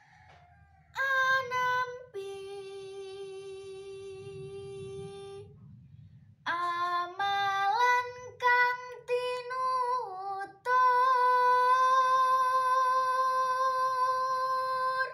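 A girl's solo voice singing a Javanese macapat verse unaccompanied: a short ornamented phrase about a second in, a long held note, another phrase with sliding pitch turns, then a note held steady for about four seconds.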